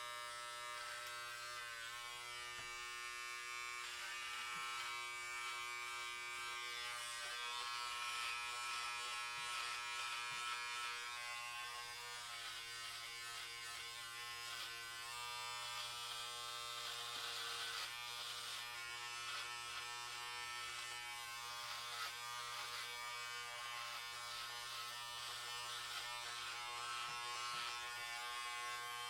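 Electric hair clippers running with a steady buzz while cutting hair, a hissing cutting noise swelling and fading over the buzz.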